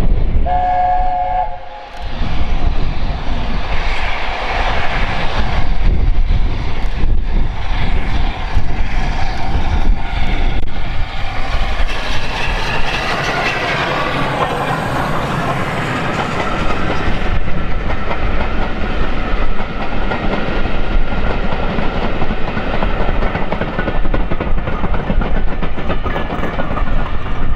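Steam locomotive sounds a short whistle of several notes at once, about half a second in. The engine and a long train of passenger coaches then pass close by, with the wheels clattering over the rail joints.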